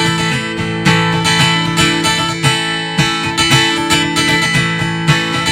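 Live band playing an instrumental passage of an original country-rock song, led by strummed acoustic guitar with evenly repeating strokes and no singing.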